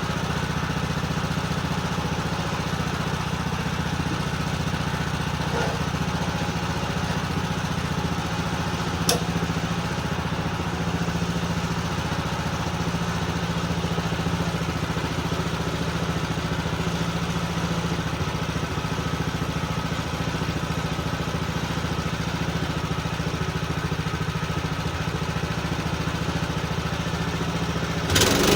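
Small gasoline engine of a bandsaw sawmill running steadily at an even pitch, with a single click about nine seconds in. Right at the end it turns suddenly louder and harsher.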